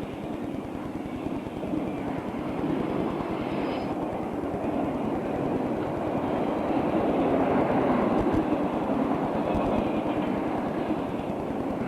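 Santa Fe freight train rolling by, a steady rumble of wheels on the rails that grows a little louder about two-thirds of the way through.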